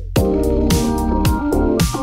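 Electronic background music: held keyboard chords over a steady beat of kick drum thumps, about two a second, with snare and hi-hat hits.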